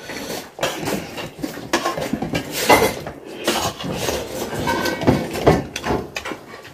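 Steel plates and bowls clinking and clattering irregularly as several people eat at a table.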